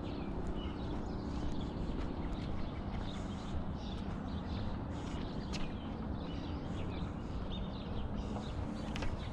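Steady low outdoor rumble with faint high chirps and light clicks scattered throughout.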